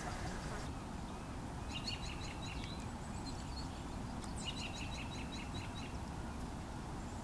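A small bird calling in two quick runs of short, high, evenly spaced notes, about seven a second, the first starting about a second and a half in and the second near the middle. A steady low background rumble runs underneath.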